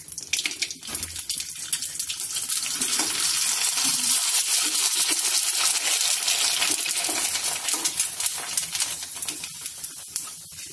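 Elai vadam, dried rice-flour crisps, deep-frying in hot coconut oil in a kadai: a crackling sizzle that builds over the first couple of seconds, holds, then eases off near the end.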